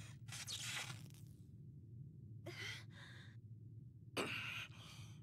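Three short, breathy exhalations like sighs or huffs from an animated character's voice, over a low steady hum.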